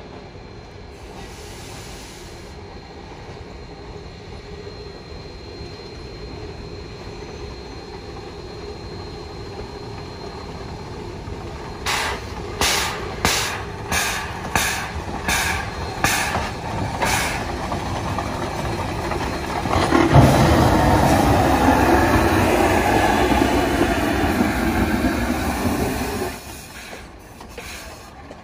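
Shay geared steam locomotive working toward the camera and passing close. Its running grows steadily louder, then comes a run of about ten sharp exhaust chuffs, roughly one every half second or so. Near the end there is a louder rushing noise as it passes, which stops suddenly.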